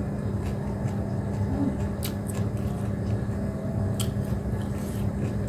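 Steady low background rumble with a constant hum, and a few faint clicks about two and four seconds in.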